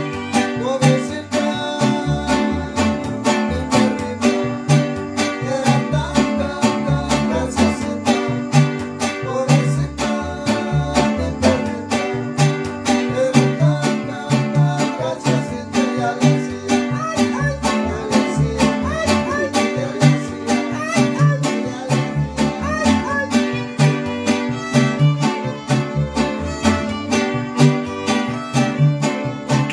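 Music from plucked string instruments, guitars strummed in a steady, quick rhythm.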